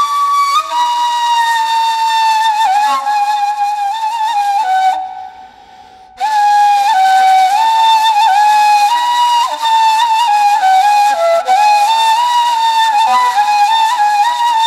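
Background music: a solo flute playing a slow melody, one note line moving up and down in steps, breaking off briefly about five seconds in and then resuming.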